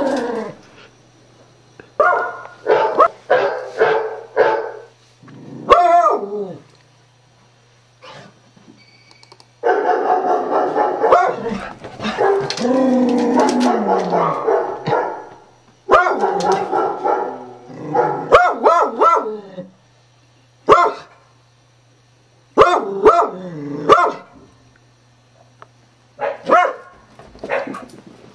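Beagle barking in repeated bursts at sound effects played from a computer, with a longer unbroken stretch of sound about ten to fifteen seconds in. A steady low hum runs underneath.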